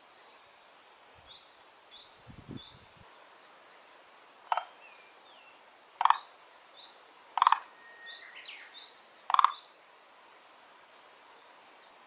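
Green tree frog calling: four short, loud calls a second and a half to two seconds apart, starting about four seconds in.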